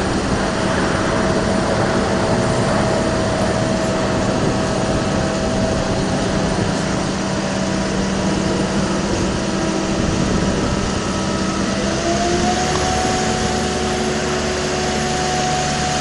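Boat travel lift's engine running steadily with a constant hum. About twelve seconds in, its pitch rises slightly and then holds.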